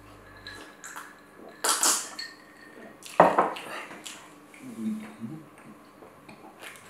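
Cutlery clinking and scraping against a plate while food is eaten, with two louder knocks, about 2 and 3 seconds in, among lighter clicks.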